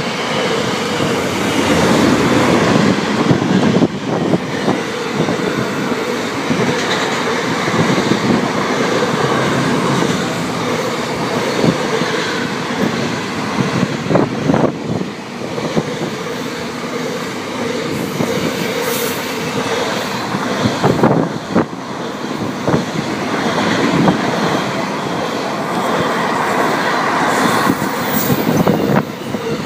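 Container wagons of a freight train rolling past on the near track: a continuous loud rumble of steel wheels on rail, with clicks as the wheels cross rail joints and a few brief high-pitched wheel squeals.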